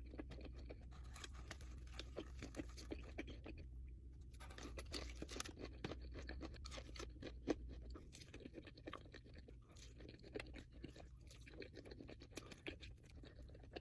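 Close-miked chewing and crunching of crispy fried chicken wings: dense, irregular crackles and wet chews, over a faint low hum that drops out about eight seconds in.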